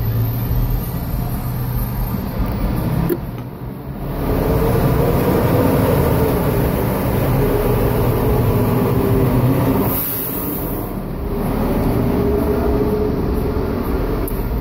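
Motor vehicle engine running nearby, a low rumble with a steady hum in it. It grows louder about four seconds in, eases off briefly around ten seconds, then picks up again.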